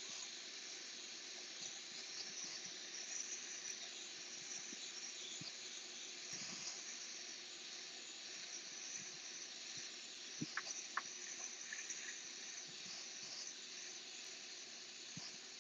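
Iwata Eclipse airbrush spraying paint, a faint steady hiss of air, with a couple of faint ticks about ten seconds in.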